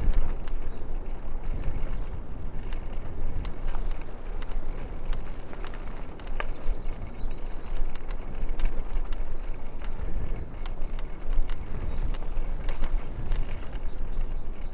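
Wind rumble on a lavalier microphone while riding an old trekking bicycle, with many sharp clicks and rattles scattered through it.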